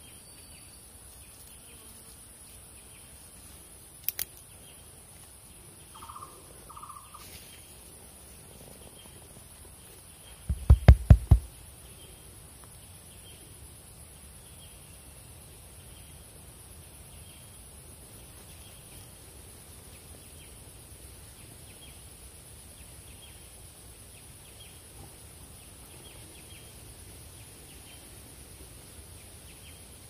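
Tropical forest ambience: a steady high-pitched insect drone, with a faint chirp repeating about once a second and a short two-note call about six seconds in. About eleven seconds in comes a quick run of five or six low thumps, the loudest sound here.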